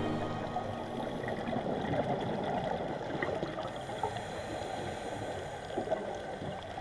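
Underwater ambience picked up by a diver's camera: a steady, muffled watery rush and gurgle with scattered faint clicks.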